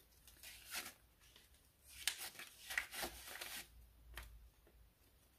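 US dollar bills rustling and flicking as they are handled and sorted by hand. The rustling comes in a short spell about half a second in and a longer, louder one from about two to three and a half seconds in.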